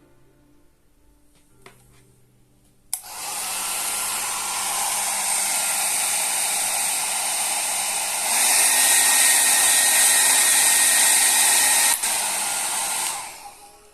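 Mini travel hair dryer switched on with a click about three seconds in and blowing steadily with a motor hum. About five seconds later it steps up to a louder, higher-pitched speed setting. Near the end there is another click and it winds down to a stop.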